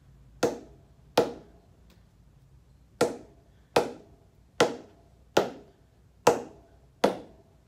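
Old leather cricket ball bounced repeatedly on the face of an SS Players willow cricket bat. There are eight sharp knocks: two in the first second or so, then a pause, then six at an even pace a little under a second apart. This is a test of the blade's press and rebound, and the willow is judged a well-rebounding medium press.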